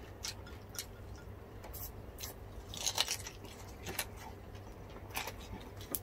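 Crispy deep-fried pork skin crunching as it is bitten and chewed close to the microphone: scattered sharp crunches, with a cluster about three seconds in.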